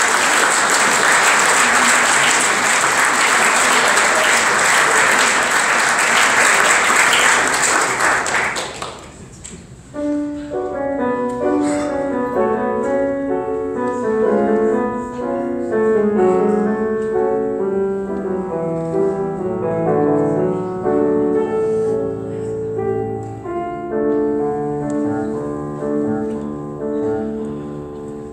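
Audience applause that stops about nine seconds in, followed by piano playing several notes at once.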